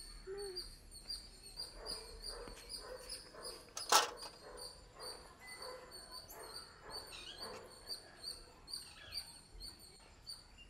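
Small birds chirping over and over in the background, with one sharp click about four seconds in.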